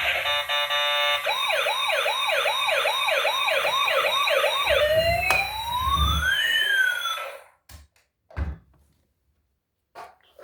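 Electronic siren of a toy emergency vehicle: a fast yelp sweeping up and down about two and a half times a second, then slower rising and falling wail tones. It cuts off about seven seconds in and is followed by a couple of soft thumps.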